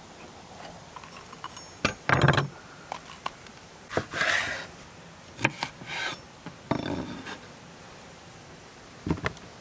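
Chef's knife cutting through pale green sweet peppers on a wooden cutting board: crisp cuts and knife strikes on the board, about eight irregular strokes with the loudest about two seconds in.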